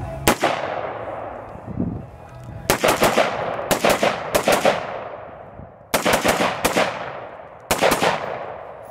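Semi-automatic gunfire from a Sig P516 gas-piston AR pistol in 5.56. There is a single shot at the start, then quick pairs and triples of shots over several seconds. Each report trails off in a long echo.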